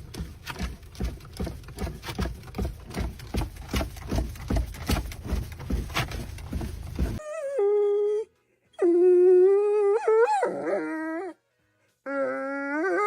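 A domestic dog howling: three long, held howls in the second half, the last one rising at its end. Before them comes a steady run of quick taps or thumps, about three or four a second.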